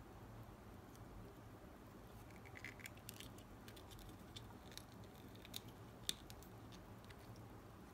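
Faint rubbing and scattered small clicks of a rubber tyre being pushed and worked onto a model car's wheel rim, starting about two seconds in, with one sharper click about six seconds in.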